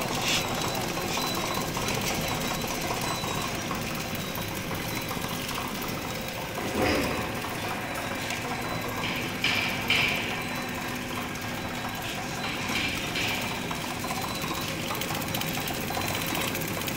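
High-speed four-side-seal toothpick packaging machine running with a steady, fast mechanical clatter. A few louder clacks stand out about seven and ten seconds in.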